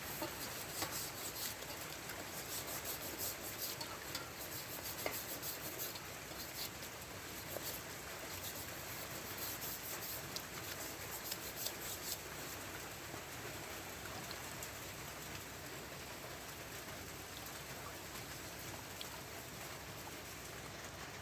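Slaughtering knife blade being washed by hand with water: rubbing and trickling, with many light clicks over the first half.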